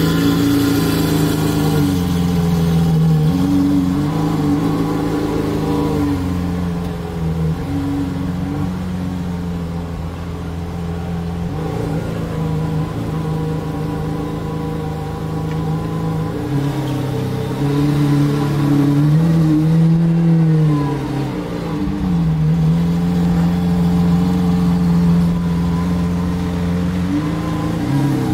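Lamborghini Aventador's V12 engine, Hamann-kitted, running at low revs as the car drives off slowly. Its pitch rises and falls a few times under light throttle, with no hard revving.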